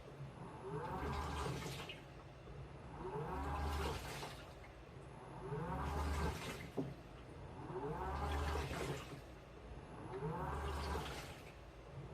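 Washing machine in its wash cycle: the motor turns the drum in repeated strokes about every two seconds, each a whine that rises then falls over a low hum, with water and laundry sloshing. A single sharp click about seven seconds in.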